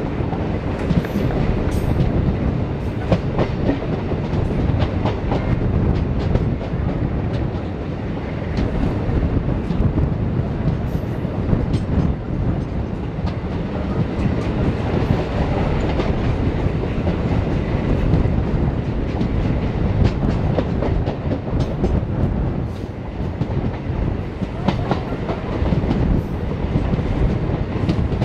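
Wheels of a moving passenger coach clattering over rail joints and points, over a steady running rumble, heard close up from the coach door.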